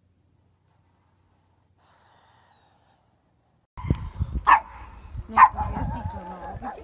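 Near silence, then a leashed pug barks twice at a larger dog. Each bark is short, over a low rumble.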